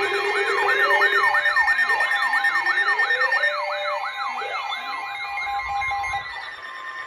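Emergency alert siren tone: a rapid warble sweeping up and down about four times a second over a steady tone. It weakens after a few seconds and fades out near the end. It signals a severe thunderstorm warning.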